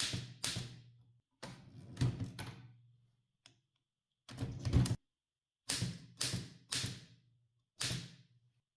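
1958 Adler Universal manual typewriter typing figures in a column with the decimal tabulator: about five short bursts of typebar strikes and carriage clunks, separated by brief pauses.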